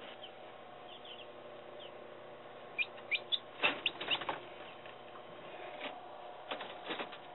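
Newly hatched chicks peeping a few short, high, falling peeps about three seconds in, with scuffling and wing-flapping on the incubator's wire mesh floor twice. Under it runs the steady hum of the Little Giant forced-air incubator's fan.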